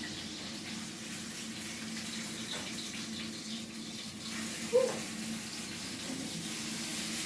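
Kitchen tap running steadily, with a low steady hum underneath. A short clink about five seconds in.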